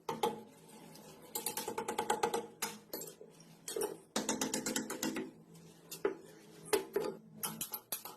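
Rapid metallic ratcheting clicks from hand-tool work on galvanized iron pipe fittings, coming in three runs of quick clicks with pauses between, over a faint steady low hum.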